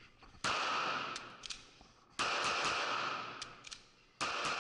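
Three pistol shots about two seconds apart, each ringing on in the range's echo, with a few light metallic clicks of gun handling between them.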